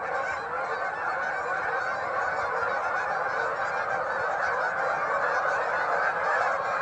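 Dense, unbroken chorus of a huge flock of ducks and geese calling all at once on a pond.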